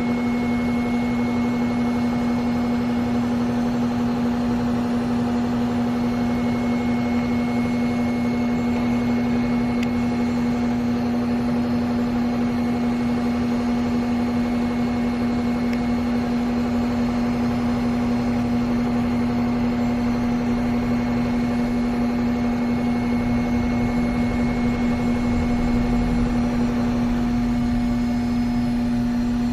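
Mikron HSM-400U high-speed 5-axis CNC machining center running under power: a steady machine hum with one strong low tone and fainter higher tones over a noisy hiss, unchanging throughout.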